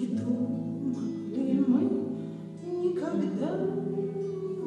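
Nylon-string classical guitar played by hand, accompanying a woman's singing voice in a slow song.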